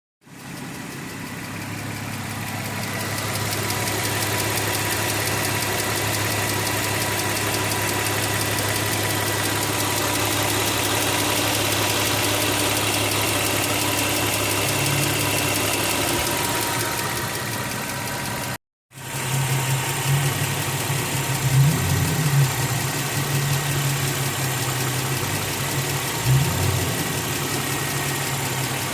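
2003 Infiniti FX35's 3.5-litre V6 idling with an odd clicking from the engine. The owner has no firm diagnosis and suspects the fuel pressure regulator, valve lifters needing re-shimming, or worn spark plugs. About two-thirds through, the sound cuts briefly and returns louder and closer, with a couple of short bumps.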